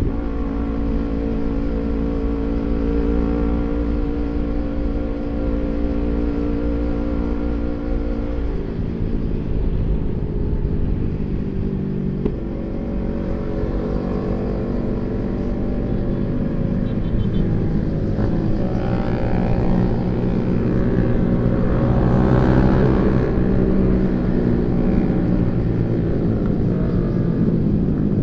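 Kawasaki Ninja 250 FI parallel-twin engine running through a CLD Monster racing exhaust while riding, its note shifting in pitch with the throttle and climbing several times in the second half.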